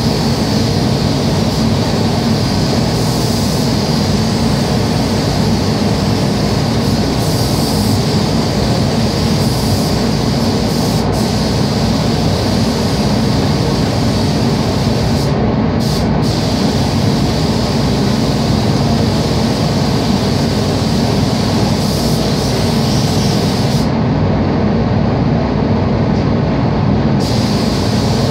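Steady loud rush of air in an automotive paint spray booth: the booth's ventilation fans run while a spray gun hisses as paint is sprayed onto car body panels.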